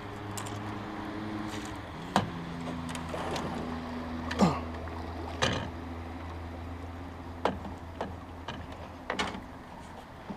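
Steady low motor hum with a whine that shifts and falls in pitch, broken by about six sharp knocks and clacks from the rod and reel being handled on the boat during a salmon fight.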